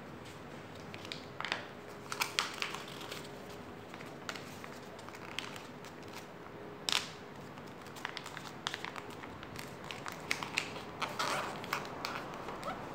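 A sheet of paper being folded and creased by hand on a stone slab: scattered crinkles and sharp crackles, the loudest about seven seconds in.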